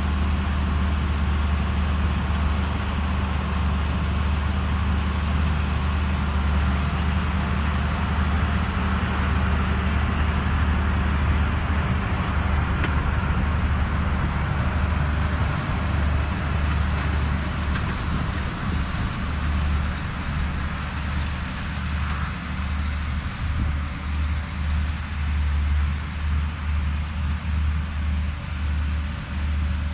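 Fendt tractor's diesel engine running steadily under load while pulling a Kverneland round baler through straw, with a broad whir of machinery over the low engine hum. From about halfway through, the engine note starts to pulse unevenly.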